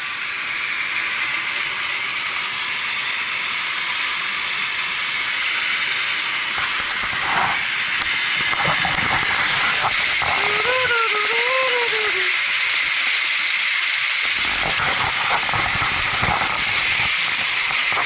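Water gushing from a fill pipe and splashing into the basin of an Evapco cooling tower as the tower is filled: a steady rushing splash.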